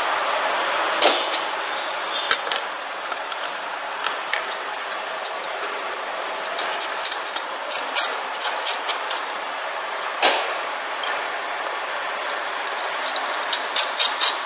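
Scattered sharp metallic clicks and taps of a hex key and bolts being worked at the hub of a filling machine's rotary star-wheel disc, clustered in quick runs. They sit over a steady background hiss.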